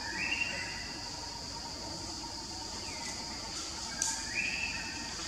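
A steady, high-pitched insect drone, with short high calls near the start and about four seconds in, and a faint falling call around three seconds.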